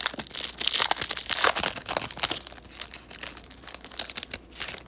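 Foil wrapper of a trading card pack being torn open and crinkled: a dense run of crackling and tearing that thins out near the end.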